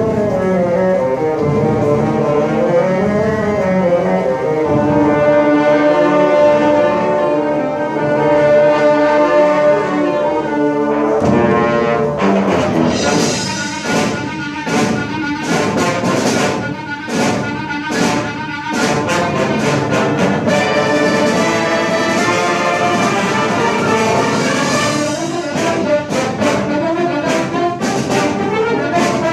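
Symphony orchestra playing film-score music, with brass prominent. About eleven seconds in the full orchestra comes in louder, with a run of sharp repeated accented chords.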